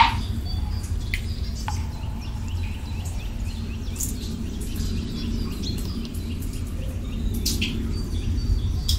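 Small birds chirping and twittering over a steady low rumble of ambience, with a sharp click right at the start.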